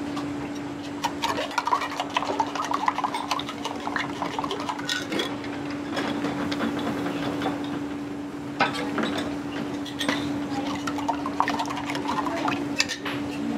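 Dishes and metal utensils clinking and knocking in a restaurant kitchen, scattered irregular clatter over a steady low hum.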